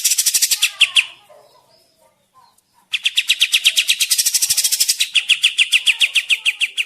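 Song of the kapas tembak bird, played as a trapping lure: a fast, evenly repeated chattering run of about ten notes a second that stops about a second in, then after a pause a longer run of about four seconds.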